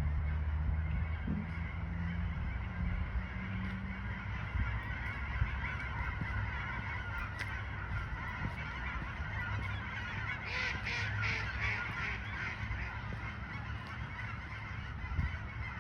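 Waterfowl calling from the pond, with a quick run of honking calls about ten seconds in, over a steady low rumble.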